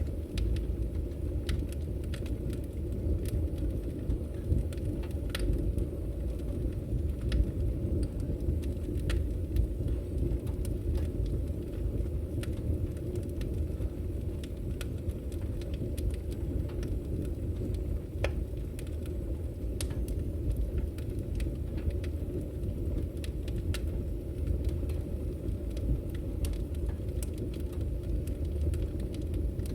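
Fire burning, with a steady low rumble and irregular sharp crackles and pops scattered through it.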